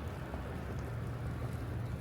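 Steady low rumble and hiss of snowstorm ambience, with no distinct events.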